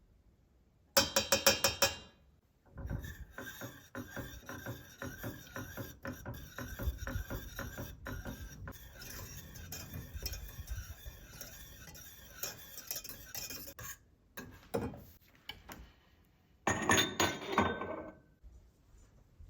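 A kitchen utensil stirring and scraping in a pan in quick, rhythmic strokes for about eleven seconds, with a short burst of rapid clinking about a second in and another near the end.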